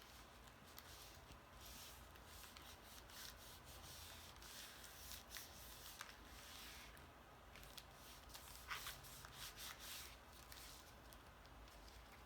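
Faint rustling and rubbing of cardstock being handled and pressed down, with scattered light taps and a short cluster of them about nine seconds in.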